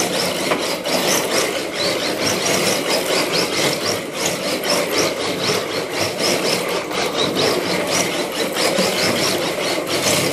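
Electric RC drift car (Exceed RC Drift King) running on a hardwood floor: steady whirring of motor and gears with rapid ticking, surging and easing with the throttle, and the tyres scrubbing on the wood as it slides.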